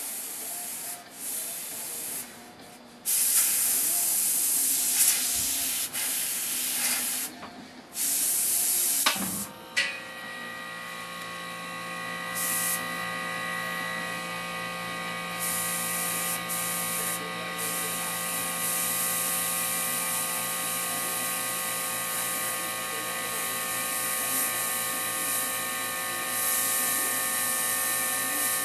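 Airbrush spraying paint in short on-off bursts of hiss. About ten seconds in a small motor starts with a click and then hums steadily under the spraying.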